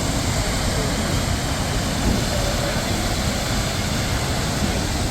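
Waterfall pouring, a loud, steady rush of water with no breaks.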